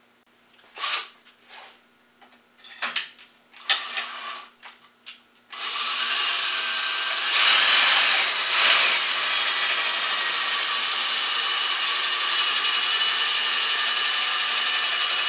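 Cordless drill running steadily, spinning a threaded rod through the threaded nut inside a coupler, coming in abruptly about five and a half seconds in. Before it come a few light knocks and rubs of handling.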